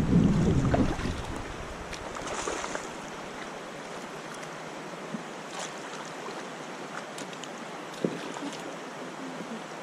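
Shallow river water running steadily around a kayak drifting over a gravel riffle, after a loud low rumble in the first second; a couple of sharp small knocks near the middle and about eight seconds in.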